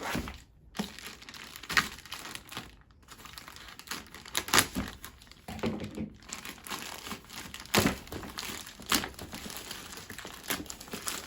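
Shipping packaging being handled and torn open: irregular crinkling and rustling, with a few sharp, louder crackles.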